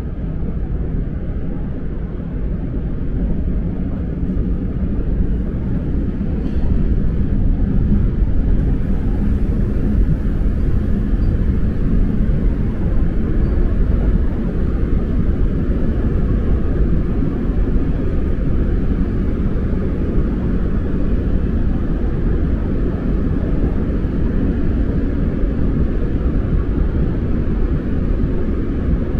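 Subway train running: a steady low rumble that grows louder over the first seven seconds or so, then holds.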